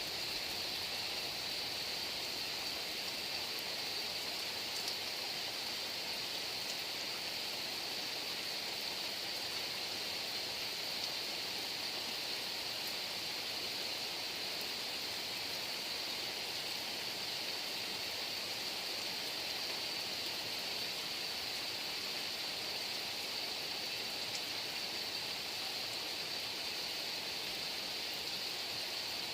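Heavy rain falling steadily: a dense, even hiss with faint scattered drop ticks.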